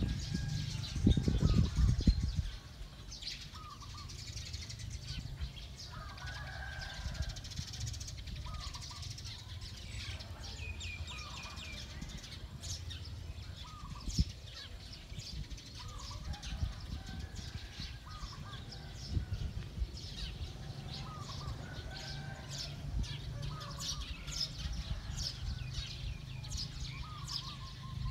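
Birds chirping and calling outdoors: many short, sharp high chirps, with a lower call repeating every second or two. A loud low rumble on the microphone fills the first two seconds.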